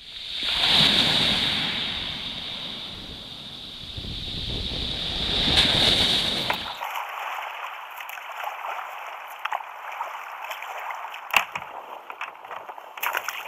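Sea waves breaking on a pebble beach, two surges swelling and fading about five seconds apart. About seven seconds in this gives way to steadier wind and water noise out on the kayak, with a few sharp clicks.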